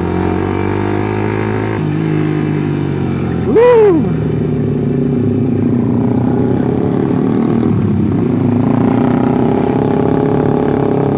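Motorcycle engines: the Yamaha Vixion Lightning's 150 cc single-cylinder engine runs at low speed while other sport motorcycles ride past close by. One throttle blip rises and falls sharply about three and a half seconds in, and the engine sound turns rougher and busier after it as the bikes go by.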